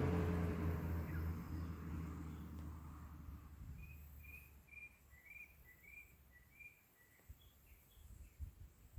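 A motor vehicle's steady low engine hum fading away over the first few seconds. Then a bird calls a quick run of about ten short chirps, followed by a few higher notes.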